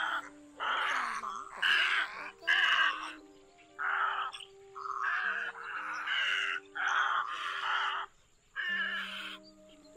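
Egrets giving harsh, raspy croaking calls, about eight in a row separated by short pauses. Background music with held notes plays under them.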